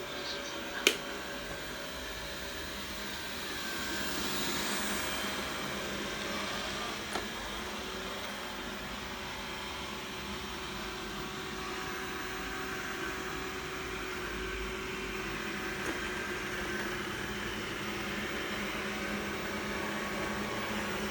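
Xiaomi robot vacuum running with a steady motor whir, with a sharp click about a second in.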